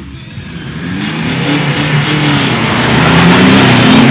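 Engines of two modified 4x4s revving and launching hard off the line in a drag race, climbing in pitch and getting louder over the first three seconds.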